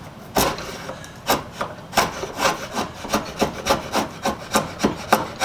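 Draw knife shaving a wooden vise chop in short rapid strokes, a few spaced out at first, then about three a second, each a sharp scrape. The blade is cutting against the grain and is dull enough that he thinks it needs sharpening.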